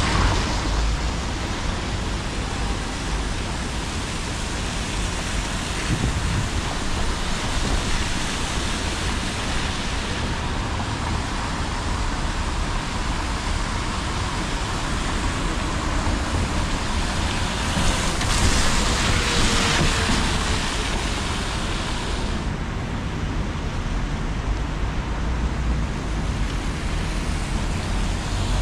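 Traffic on a wet city street: a steady hiss of tyres on rain-soaked road over a low rumble. The hiss swells for a few seconds about eighteen seconds in as a vehicle passes.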